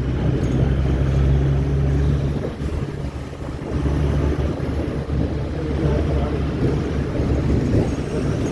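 A moving vehicle's engine and road noise, a steady low drone that drops away for about a second around three seconds in and then comes back, with wind buffeting the microphone.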